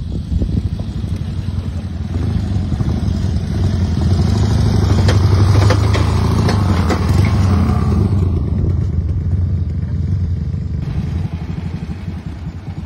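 A vintage motorcycle's engine growing louder as the bike approaches and passes close by, then fading away, with a burst of rattling clicks as it passes, as it crosses a cattle grid. Near the end, more old motorcycles running, quieter.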